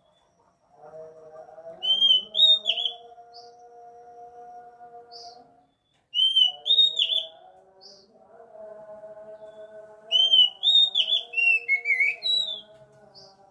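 Oriental magpie-robin (kacer) singing loud whistled phrases of quick rising and falling notes, three bursts about two, six and ten seconds in, with short high notes between them. A steady low droning tone runs underneath.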